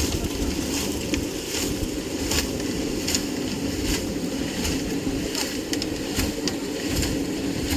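An engine running steadily under load, with short scrapes or knocks over it every second or so.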